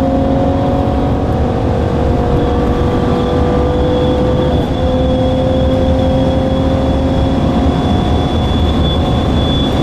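2014 Cadillac CTS's twin-turbo V6 engine pulling steadily, heard from inside the cabin, its pitch rising slowly with a brief break about halfway through, like a gear change. A thin high whine joins after a couple of seconds.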